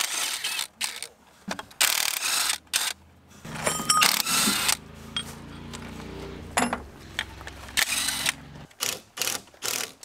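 Cordless impact wrench hammering in a series of short bursts, with a quick run of brief bursts near the end, working the cylinder-head nuts off a Ford flathead V8.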